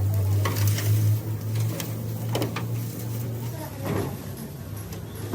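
A machine running with a steady low hum, with a few sharp knocks over it; the hum drops away about three and a half seconds in.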